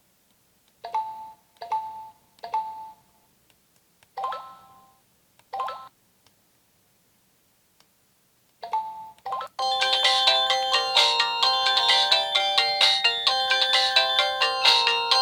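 Samsung Anycall SCH-S140 slide phone sounding a few short electronic beeps, then, about ten seconds in, starting one of its built-in 64-chord polyphonic ringtones, a busy multi-note melody played through the phone's own speaker.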